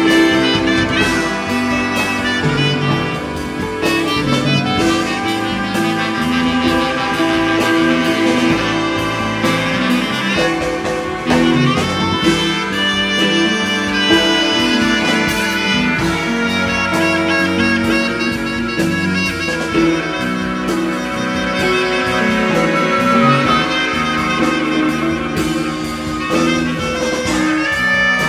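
A large jazz ensemble playing live. Saxophones, clarinet, trumpet and trombone play over a steady drum beat, with bowed strings underneath.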